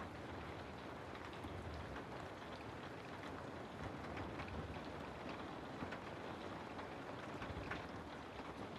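Steady rain falling through forest trees, an even hiss with many scattered drips and drop ticks on leaves.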